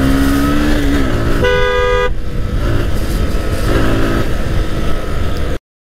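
Road traffic heard from a moving motorcycle: steady road noise with a vehicle horn honking once for about half a second, a second and a half in. The sound cuts off suddenly near the end.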